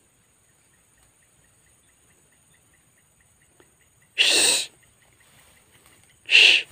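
Two short, loud, breathy exhalations by a person close to the microphone, the first about four seconds in and the second near the end, over a faint rapid ticking.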